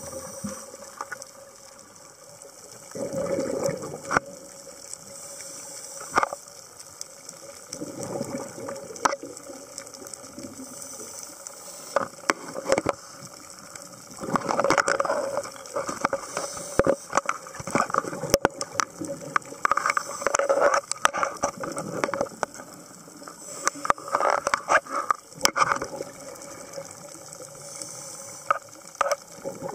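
Scuba regulator breathing underwater: a surge of exhaled bubbles about every five seconds, with many sharp clicks scattered between.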